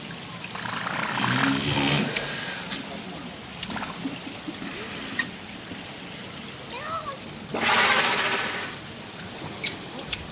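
Walrus giving two loud blowing blasts: the first, about a second in, builds up over a low grunting tone; the second, near the end, is the louder and sharper. Steady running water from the exhibit pool throughout.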